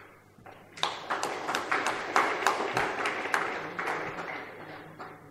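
Audience applauding, a crowd of hands clapping that starts about a second in, then fades out near the end.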